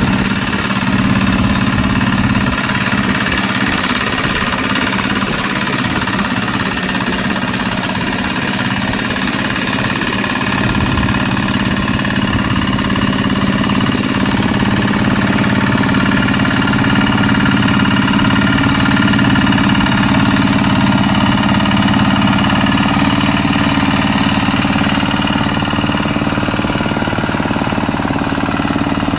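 Two-wheel hand tractor's single-cylinder diesel engine running steadily under load as its steel mud wheels work through a flooded paddy field.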